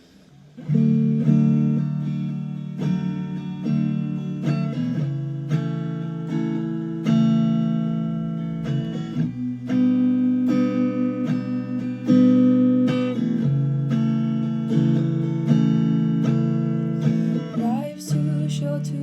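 Acoustic guitar strumming chords in a steady rhythm, starting about a second in.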